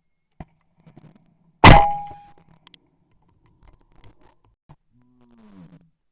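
A single shotgun shot from a Blaser F16 over-and-under firing a one-ounce target load, heard from a barrel-mounted camera: one sharp report about a second and a half in, ringing out over about half a second.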